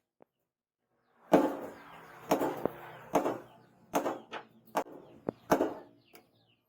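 Irregular metal-on-metal strikes, about eight or nine, each ringing briefly after the hit, starting about a second in. These are typical of hammer blows on steel at a blacksmith's anvil.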